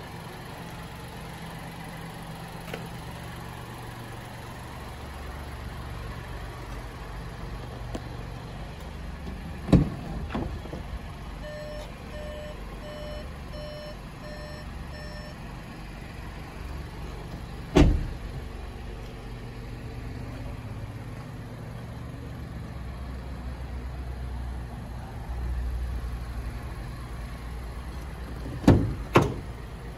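Volkswagen T-Cross doors shutting with heavy thumps: one about ten seconds in, one a little before halfway, and two close together near the end. The car's warning chime beeps about twice a second for some four seconds, over a steady low hum.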